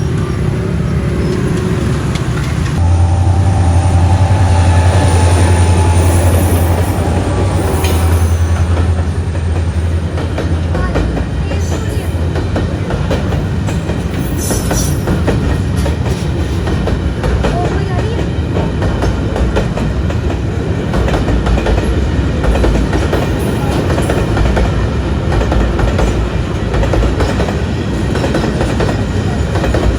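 Train passing close by: a deep steady drone for several seconds, then a continuous clatter of wheels over the rail joints.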